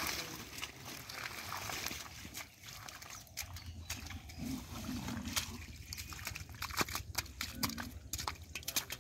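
Wet water hyacinth stems and leaves rustling and snapping as they are pulled away by hand, then sharp wet clicks and slaps as large catfish are handled on muddy ground.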